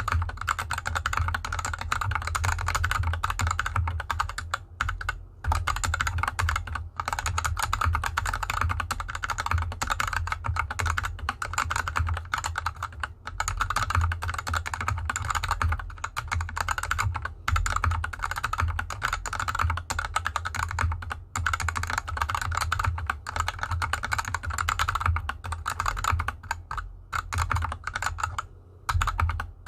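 Fast, continuous typing on a mechanical keyboard with unlubed Gateron Yellow linear switches and DSA keycaps (GK64X hot-swap 60% board) resting on felt fabric. It is a dense run of keystroke clicks and clacks, broken by a few short pauses.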